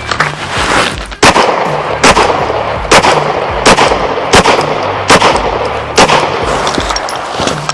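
Pistol shots fired in a steady string of about ten, roughly one every three-quarters of a second, on a timed course of fire.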